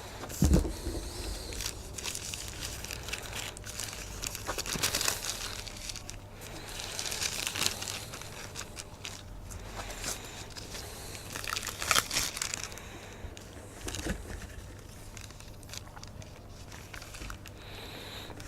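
Crinkling and crackling of plastic wrapping and tape as a roll of builder's flash band is handled and unwrapped, in irregular rustles with a few louder tearing crackles. A dull thump about half a second in.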